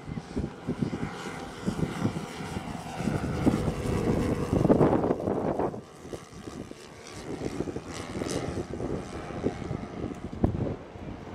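Engines of a 1/10-scale radio-controlled B-17 model droning in flight, rising to their loudest about five seconds in, then dropping off sharply. Gusty wind buffets the microphone throughout.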